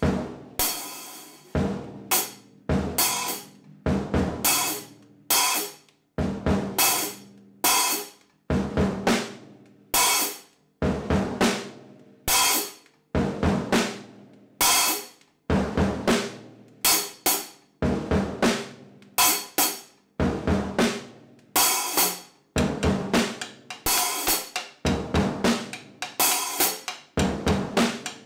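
Ludwig acoustic drum kit played in a steady groove: snare and bass drum hits with cymbals and hi-hat, each stroke ringing out briefly before the next, with quick clusters of hits here and there.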